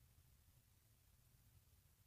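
Near silence: the answer pause of a recorded listening test, with only faint hiss and low hum.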